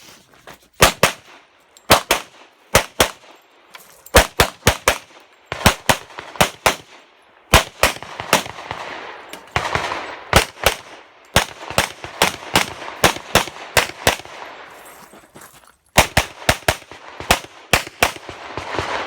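Semi-automatic pistol fired rapidly in a practical shooting stage, mostly in quick pairs and short strings of shots, with a brief pause about three-quarters of the way through before the shooting resumes.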